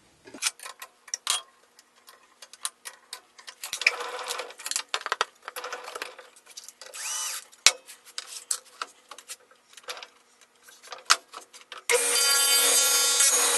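A rapid string of metal clicks, knocks and rattles from setting up a table saw: the arbor nut is tightened on a wobble wheel dado blade, and the throat plate and fence are put in place. About 12 seconds in, the table saw motor switches on and runs loudly and steadily with a whine, spinning the wobble dado blade.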